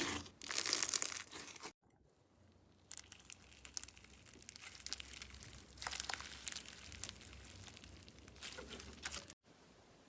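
Slime being squeezed and pressed by hand, giving a dense run of crackles and pops. After a sudden cut about two seconds in, quieter, scattered crackles follow.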